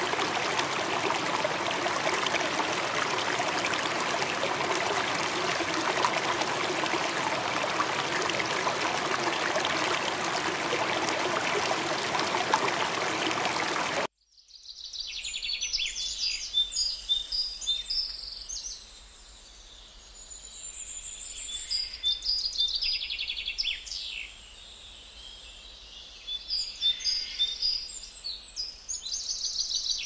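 Steady rush of running water that cuts off abruptly about halfway through. Small songbirds then chirp and twitter in short, high-pitched phrases with quiet gaps between them.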